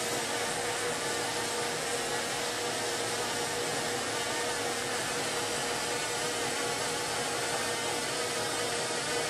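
Steady hiss of a hand-held glassworking torch flame playing on hot glass turning in a glass lathe, with a steady hum beneath it.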